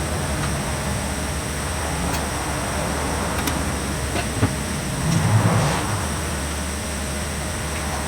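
A machine running steadily with a low hum, a few light clicks and a knock about four and a half seconds in, growing louder briefly just after five seconds.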